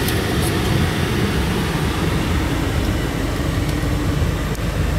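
Mercedes-Benz Actros 1845 tractor truck's straight-six diesel running steadily, heard inside the cab: a low, even engine rumble with road noise from driving.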